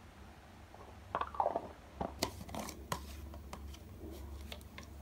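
A run of light clicks, taps and crinkles from small objects being handled on a tabletop, beginning about a second in, over a low steady hum.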